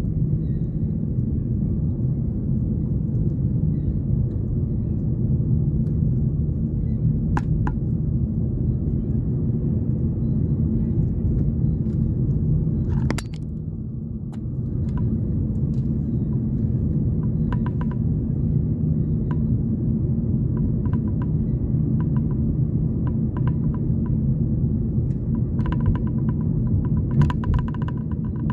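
Steady low rumble of a car's road and engine noise heard from inside the cabin while driving at steady speed. A few faint clicks come through, and a quick light ticking starts near the end.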